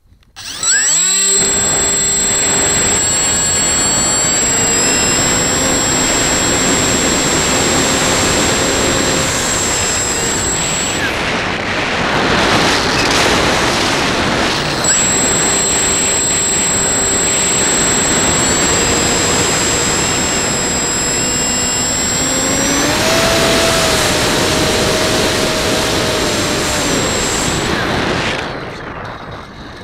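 RC plane's electric motor and propeller spinning up sharply about half a second in and then running hard, a steady high whine over heavy wind rush on the onboard camera's microphone. The whine drops out for a few seconds around the middle and shifts pitch later, and the sound eases briefly near the end.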